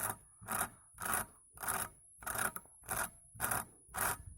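A cutting tool drawn by hand back and forth across the thin, tape-covered glass of an LED filament bulb, rasping in even strokes a little under two a second.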